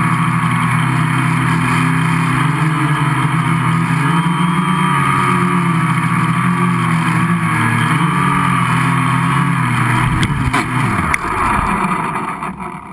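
Gaui 500X electric quadcopter's motors and propellers buzzing in flight, heard from a camera on its frame, the pitch wavering as the throttle shifts. Shortly after ten seconds in, the quad touches down with a couple of knocks and the motors spin down, the pitch falling.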